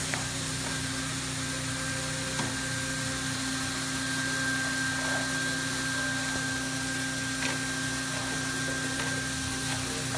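BAK RoofOn R hot-air roofing welder running: a steady blower rush with a constant low hum and a thin high whine, and a few light clicks.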